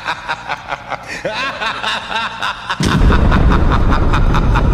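Cartoon sound effects: a ticking, chirping musical bed at about four ticks a second, then, about three seconds in, a sudden loud explosion effect that goes on as a heavy rumble. The blast stands for the TPS62180 buck converter blowing up on the logic board.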